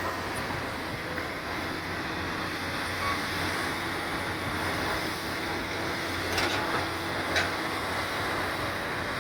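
Komatsu PC200 hydraulic excavator's diesel engine running steadily, with a few sharp metallic knocks a little past halfway.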